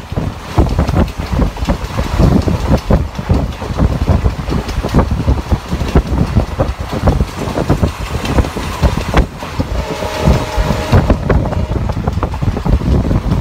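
Train running at speed: a loud, steady low rumble with rapid clattering knocks throughout.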